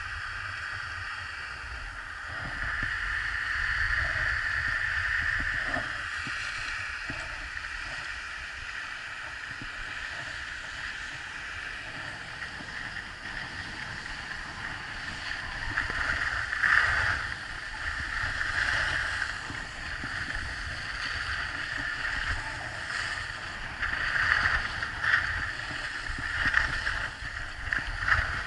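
Sliding down a groomed ski slope: snow hissing and scraping under the edges, with wind rumbling on the microphone. The scraping swells louder a few times in the second half, as on harder turns.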